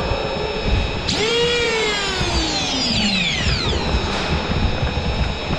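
Motorized Nerf blaster's flywheel motors spinning up sharply about a second in, then winding down in a long falling whine over about three seconds.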